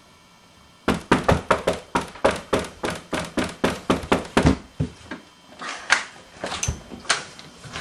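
Rapid knocking, about four or five sharp knocks a second for several seconds, thinning out to a few scattered knocks near the end.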